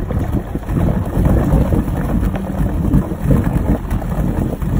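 Vintage Gar Wood 30-foot wooden runabout's inboard engine running at low speed as the boat leaves the dock: a loud, uneven low rumble from the exhaust, with propeller wash churning at the stern.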